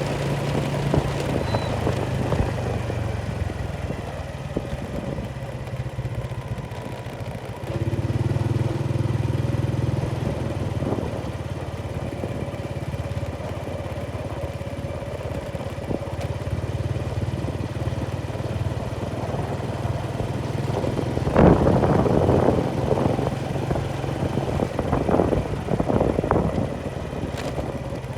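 A motor engine running steadily, getting louder about a third of the way in, with several sharp knocks or clatters near the end.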